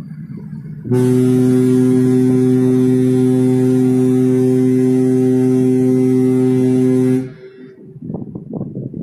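Ship's horn on the KM Lawit sounding one long, steady blast of about six seconds: a deep, loud tone with many overtones that starts about a second in and cuts off near the end. A low rumble is heard before and after the blast.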